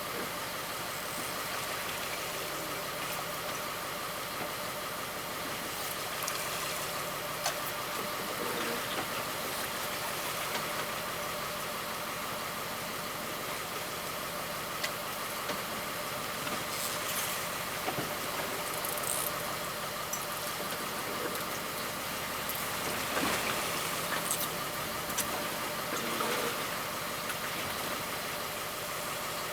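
Fishing boat's engine running steadily at low speed, with a few scattered clicks and knocks.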